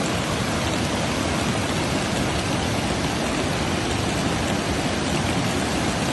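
Steady rush of fast-flowing muddy floodwater.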